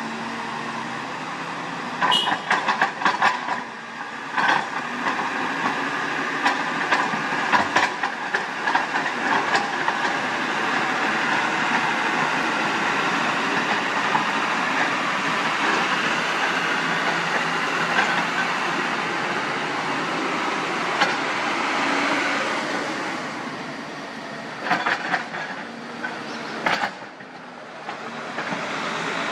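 Heavy dump trucks driving past with diesel engine noise that swells and fades as they pass. Clusters of sharp metallic clanks and rattles come in three spells: a few seconds in, around eight seconds, and near the end.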